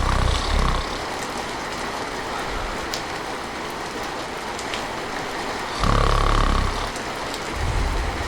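A person snoring over steady rain: the tail of one snore at the start, a loud snore about six seconds in and a softer one near the end. A few sharp raindrop drips stand out.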